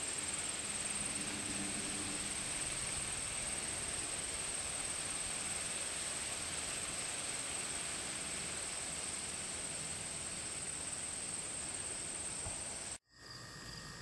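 Insects trilling in one steady, unbroken high-pitched drone over a soft outdoor hiss, cut off abruptly near the end.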